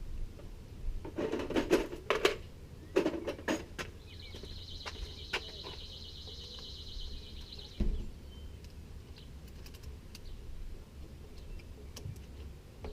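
Clinks and knocks of tools and bicycle parts being handled, followed by a steady high buzz lasting about three seconds and one more knock.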